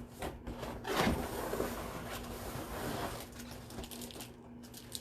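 Rustling and scraping of packaging as items are handled inside a large cardboard shipping box, with louder rubs about one second in and near three seconds.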